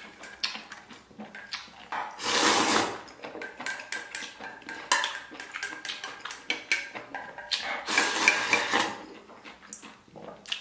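Slurping of noodles and spicy broth straight from the bowl, in two loud noisy bursts, amid clicks and scrapes of wooden chopsticks against a stainless steel bowl.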